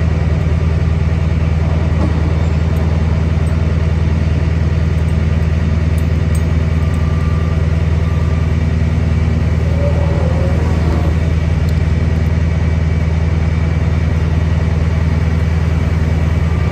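Bucket truck's engine idling steadily, a constant low hum.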